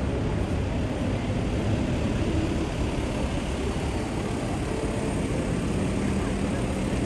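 Steady city street noise: a dense, even wash of traffic with a low rumble underneath and no single sound standing out.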